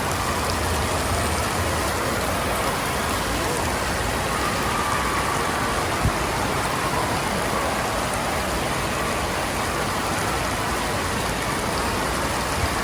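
Steady rush of falling and splashing water at an indoor water park, with a din of voices in the background.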